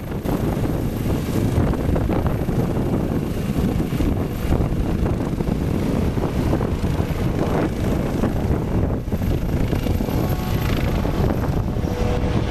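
Eurocopter EC135 rescue helicopter taking off quickly and climbing away, its rotor and turbine sounding steadily and heavily.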